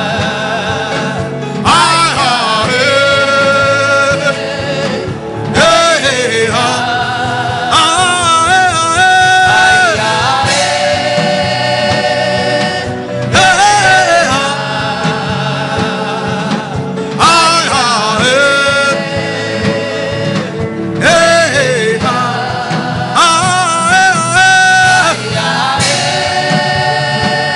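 Gospel worship music: a singing voice with wavering, held notes over steady accompaniment, in phrases of a few seconds that repeat like a chant.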